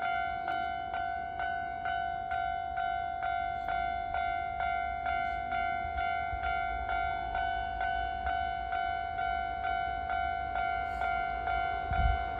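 Japanese level crossing warning bell ringing in a steady repeating clang, a little over two strikes a second, over a low rumble. A short low thump comes near the end.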